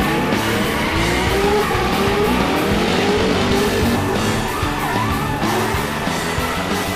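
Rock music with a vehicle engine revving and tyres skidding mixed over it, the engine pitch rising and falling.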